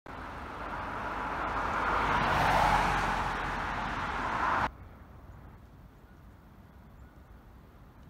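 A car passing on the road, its tyre and engine noise swelling to a peak about two and a half seconds in and then cut off abruptly a little after four and a half seconds, leaving only faint outdoor background.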